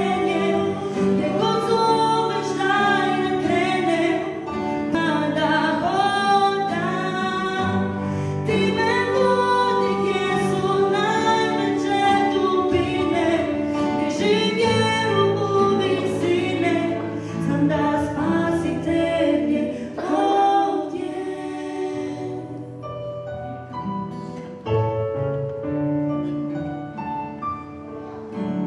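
Live acoustic worship song: a woman singing the lead with other voices and a small band behind her. About 22 seconds in the singing stops and the instruments play on alone with separate plucked notes.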